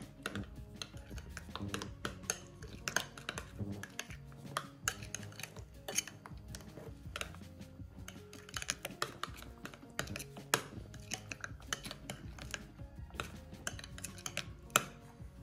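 Metal spoon stirring a thick cream dip in a small ceramic bowl, clinking and scraping against the bowl in quick, irregular taps, with soft background music underneath.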